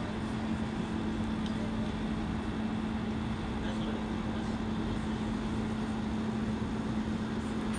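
Steady machinery hum with one constant low tone over a broad even rumble, unchanging throughout.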